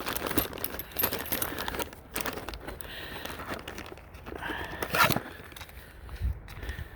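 A spline roller pressing spline and heavy-duty pet screen mesh into a screen-door frame channel, forced in under heavy pressure. Irregular crackling and clicking, densest in the first two seconds, with a sharp click about five seconds in.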